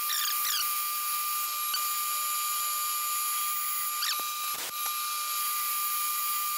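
Metal lathe boring out a pulley blank with a large boring bar: a steady high-pitched whine from the spindle and the cut, with a few brief wavering squeaks and faint ticks as chips come off.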